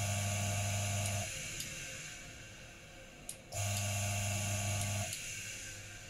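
DF64 coffee grinder motor running in two short bursts as its i-switch is pressed: it runs, stops about a second and a quarter in, then after a click about three seconds in runs again for about a second and a half before stopping.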